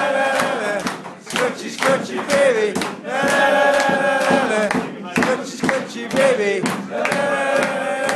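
A roomful of men chanting in unison, holding long notes with falling swoops between them, with sharp percussive hits in time.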